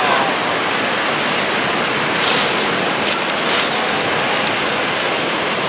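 Small surf waves breaking and washing up the beach in a steady rush of white water, with a few louder splashes about two to three and a half seconds in.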